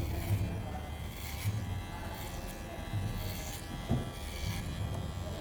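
Electric hair clippers running with a steady buzz, with a short knock about four seconds in.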